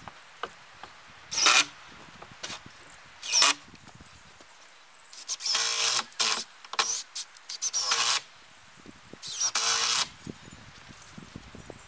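Cordless drill driving into the wooden edge board of a roof, running in a series of short bursts, the longest about a second, its motor whining under load.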